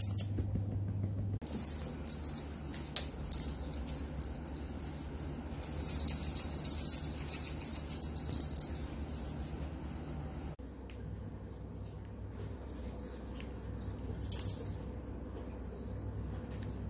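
A small jingle bell shaken, most strongly from about six to ten seconds in, then in short shakes near the end.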